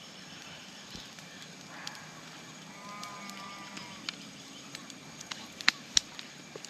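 A farm animal calls once, about three seconds in, over a low steady background. Two sharp clicks near the end are the loudest sounds.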